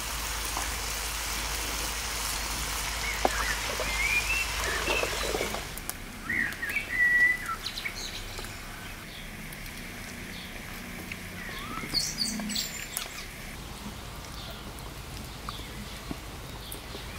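Small birds chirping: a few short, quick calls, the loudest about seven seconds in and higher-pitched ones around twelve seconds. A steady rushing background runs under the first six seconds or so, then falls away.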